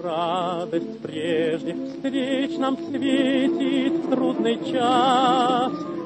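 A singer holding drawn-out notes with a wide vibrato over instrumental accompaniment, a slow Russian song with lyrics. The longest held note comes near the end.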